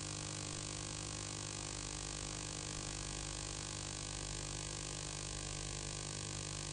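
A steady, unchanging hum made of several fixed tones over a light hiss, with no events in it.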